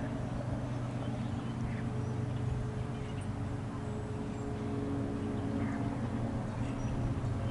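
Diesel locomotives of an approaching freight train, heard as a steady low engine drone that slowly grows louder.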